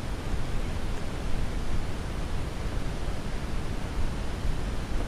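Steady wind rushing over the camera microphone, a deep, even hiss.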